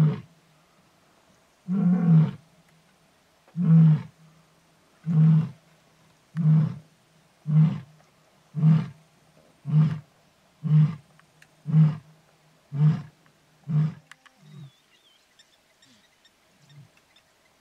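Lion roaring: a series of deep grunts, each shorter and weaker than the last, coming faster (from nearly two seconds apart to about one) and dying away about two-thirds of the way through. This is the grunting tail of a full roar. Faint bird chirps follow near the end.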